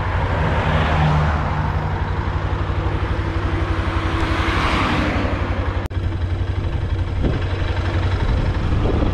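A motor vehicle's engine running with a steady low hum, broken by a brief dropout about six seconds in.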